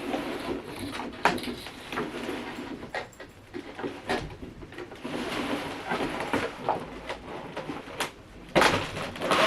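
Cardboard figure packaging being handled and opened: rustling and scraping of cardboard sliding against cardboard, with several sharp knocks and taps, the loudest near the end.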